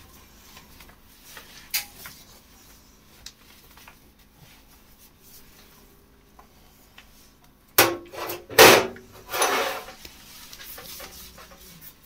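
Household cleaning handling: faint scattered clicks, then a quick cluster of sharp knocks about eight seconds in, followed by a brief rubbing swish.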